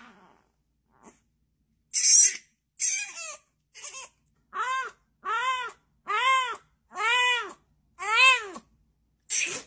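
A cat meowing again and again: a few short, rough calls, then a run of about five clear meows, each rising and falling in pitch, about a second apart.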